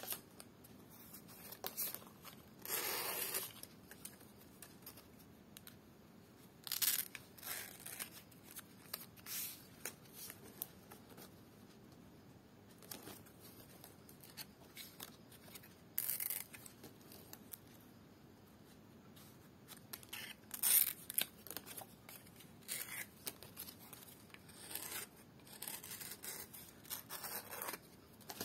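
Dried ental (lontar palm) leaf being cut and split into strips with a small metal blade, with rustling of the stiff leaf as it is handled. The sound comes as scattered short slicing and rustling strokes, with a longer stroke about three seconds in.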